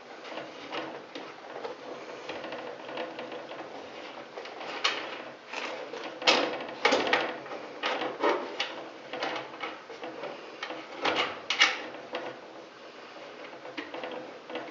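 Hand work on a water-line fitting: irregular clicks, scrapes and small knocks of the metal line and nut being fitted to the humidifier's float valve, with the sharpest knocks clustered in the middle and later part.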